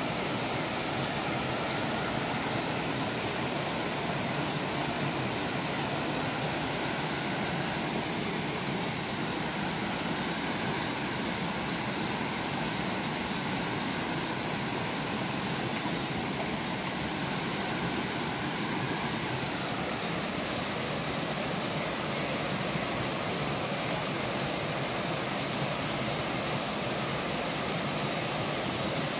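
Fast-flowing river rushing over rocks, a steady unbroken roar of water.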